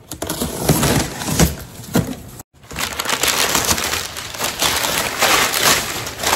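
Box cutter slitting the packing tape along a cardboard box, then, after a brief dropout about two and a half seconds in, crumpled brown kraft packing paper crinkling and rustling as hands rummage through it.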